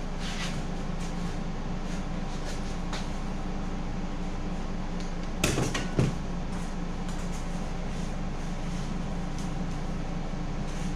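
Steady mechanical hum in the workshop, with faint ticks and two sharp clacks about five and a half and six seconds in as a caulking gun of construction adhesive is handled on the workbench.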